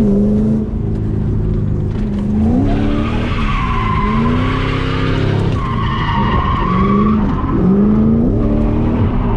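Stock Ford Mustang GT's 4.6-litre three-valve V8 heard from inside the cabin, its revs climbing and dropping again and again as it is driven sideways. The tyres squeal in two long stretches in the middle.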